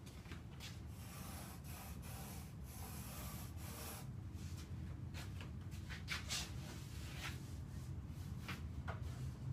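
Pencil scratching across paper as it traces the outline of a foam surfboard: a long continuous stroke of about three seconds, then a few short strokes.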